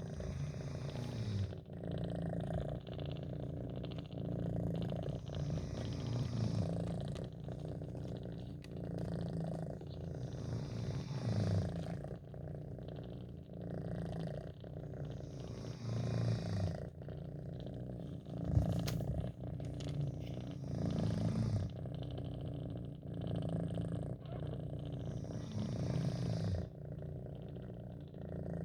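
Domestic cat purring close up, a low steady rumble that swells and fades with each breath, about one cycle every one to two seconds. There is one short sharp click about two-thirds of the way through.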